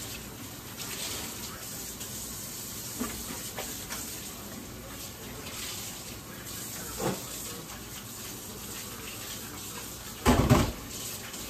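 Kitchen faucet running into a stainless steel sink during hand dishwashing, with a few light knocks of dishware and one louder clunk about ten seconds in.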